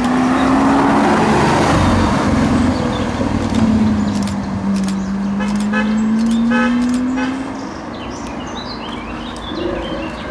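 Lamborghini Sián FKP 37's V12 engine running as the car drives by at low speed: a steady engine note that rises and falls in pitch, then drops away near the end as the car pulls off.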